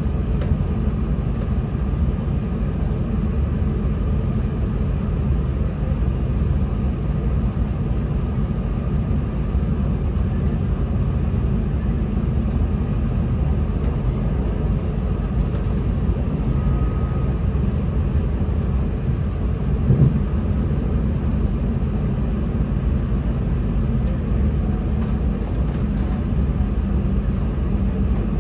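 NI Railways Class 3000 (CAF C3K) diesel multiple unit running, heard from on board: a steady low rumble of the underfloor diesel engines and wheels on the track, with one brief thump about twenty seconds in.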